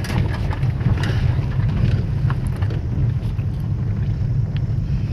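Maruti Suzuki Swift heard from inside the cabin while driving over a rough gravel road: a steady low engine and tyre rumble with scattered small clicks of stones under the tyres.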